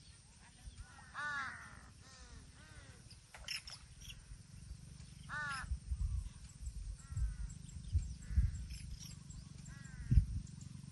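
Birds calling: clusters of short, repeated, rising-and-falling notes, several notes at a time. Low rumbling thumps sound underneath, the loudest one about ten seconds in.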